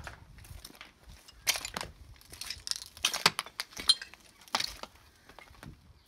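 Footsteps crunching on broken glass and debris: a string of uneven crunches with glassy clinks mixed in.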